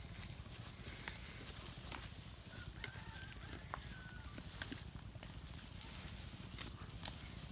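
Komodo dragons feeding on a wild boar carcass: scattered sharp cracks and snaps, the loudest about seven seconds in, over a steady high hiss and a low rumble.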